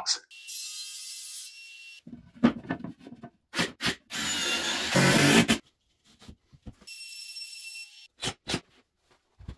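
Woodworking shop sounds in quick cuts: sharp knocks and taps on wood, and a loud burst of power-tool noise lasting about a second and a half, about four seconds in. A faint high hiss comes twice, at the start and near the end.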